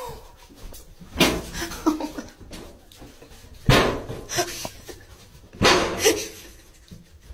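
A small dog barking: three loud barks a couple of seconds apart, each followed by a softer yelp.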